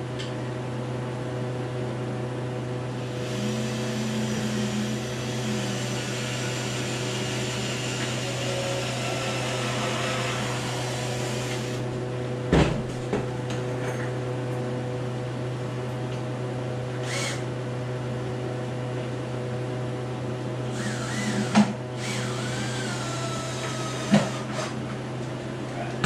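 Handheld power drill boring a pilot hole into three-quarter-inch melamine board: a long steady run of motor whine starting about three seconds in, then a few sharp knocks and a short burst of drilling that speeds up and slows down near the end. A steady low hum runs underneath throughout.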